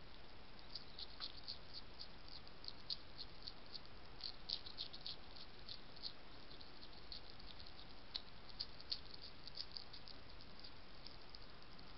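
European hedgehog chewing and crunching food, a run of quick, irregular crunches coming several a second in little bursts, over a steady hiss from the trail camera's microphone.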